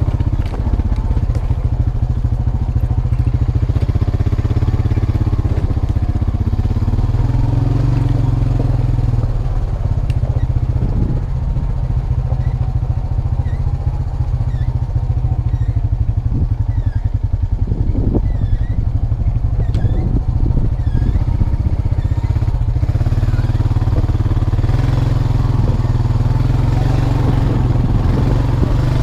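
A Honda Rancher 350 ATV's single-cylinder four-stroke engine running steadily while the quad is ridden, its pitch rising and falling a little, with occasional knocks and clatter from the machine over rough ground.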